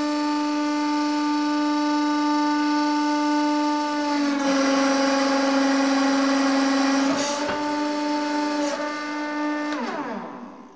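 Hydraulic press pump running with a steady, loud, pitched hum as the ram comes down and squashes soft modelling clay. About four seconds in the hum drops slightly in pitch and turns rougher while the ram is under load. Near the end it glides down in pitch and dies away as the pump stops.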